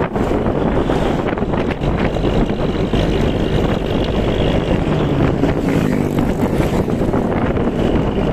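Wind rushing over the microphone together with engine and road noise from a moving vehicle travelling along a road. A faint engine hum rises out of the rush about five seconds in.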